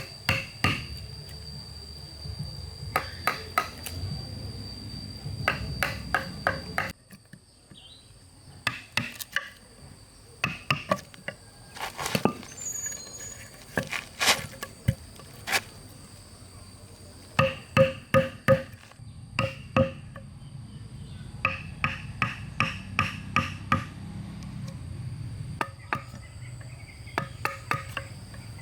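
Hand tool striking wood in quick bursts of three to five blows, repeated again and again, with a steady shrill of insects behind it.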